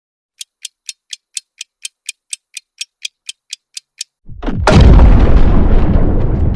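Countdown-timer sound effect ticking about four times a second for roughly four seconds, then a sudden loud explosion-like boom that trails off into a long low rumble.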